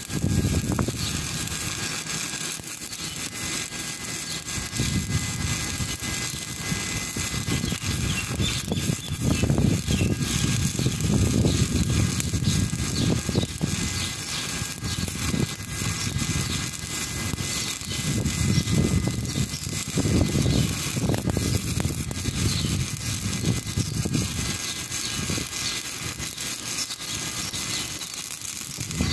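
Stick (shielded metal arc) welding: the arc crackles and hisses steadily as the electrode burns, with a low, uneven rumble underneath.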